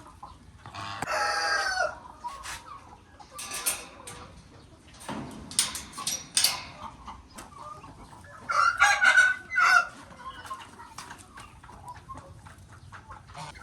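Chickens clucking and calling, with a rooster crowing; the loudest call comes about nine seconds in.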